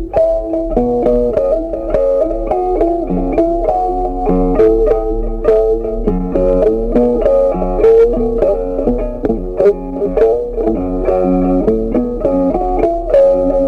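Background music: a guitar playing quick plucked notes over a bass line.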